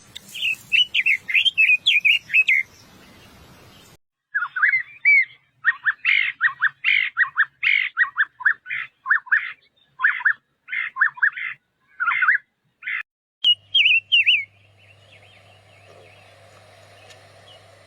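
Paddyfield pipit singing: runs of short, quick chirping notes repeated several times a second, in three bouts, the longest lasting about nine seconds.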